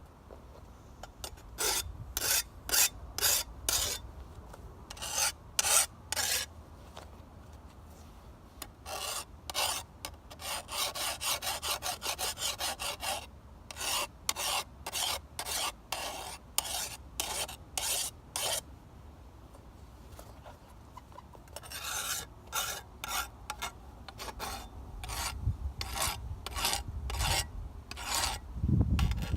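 Hand file stroked along the steel edge of an old sickle blade to sharpen it and raise the burr. The strokes come in runs, mostly about two a second, with short pauses between runs and a faster run midway.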